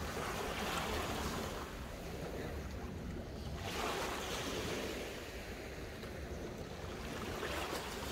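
Small waves breaking and washing over a shingle beach, the surf swelling and falling away in several washes, one cutting off sharply about three and a half seconds in. A low wind rumble on the microphone runs underneath.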